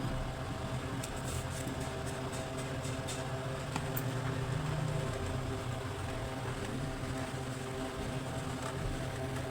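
Steady low mechanical hum with even overtones, with a few faint light clicks in the first few seconds.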